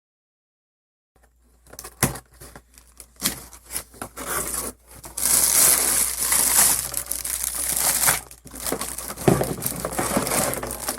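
Crinkling and rustling of something being handled, with scattered clicks. It starts about a second in and is densest through the middle.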